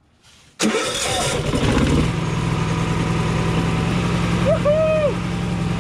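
Yamaha EF4500iSE inverter generator's electric starter cranking the engine briefly, about half a second in; the engine catches at once and settles within a second or so into a steady run.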